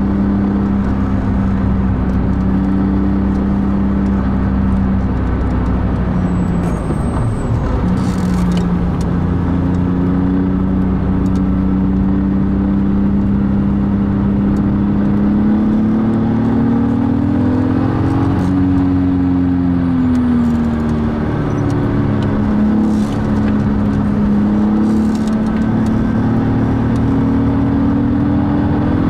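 BMW Z4 Clubsport's engine heard from inside the cabin at track speed, its pitch climbing slowly under acceleration, dropping briefly a few seconds in, falling again past the middle as the car slows, then rising once more.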